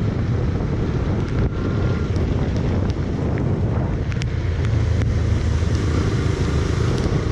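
Yamaha FZ-S motorcycle riding on a rain-soaked, flooded road: steady wind buffeting the microphone over the low running of the engine and the hiss of wet tyres.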